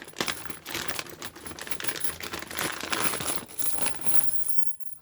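Metal handcuffs and chain being handled and unpacked: a rapid run of irregular clinks and rustles that stops shortly before the end.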